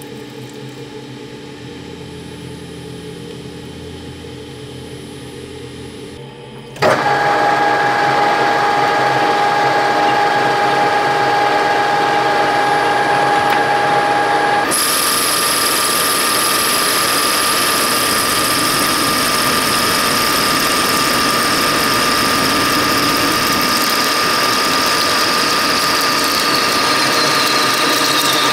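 Geared-head manual lathe running, drilling into a chucked part. It starts as a quieter steady hum, then about seven seconds in turns suddenly much louder with a steady gear whine, and about eight seconds later the whine changes to a higher pitch and runs on steadily.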